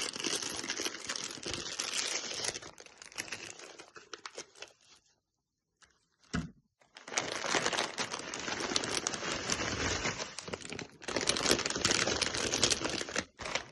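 Plastic wrapper of a Chupa Chups lollipop crinkling as it is handled and unwrapped, in two long spells with a pause of about two seconds between them.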